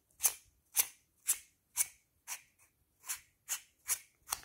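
Metal screw threads of a rechargeable aluminium torch rasping as the body is twisted apart by hand, a short scratchy stroke about twice a second.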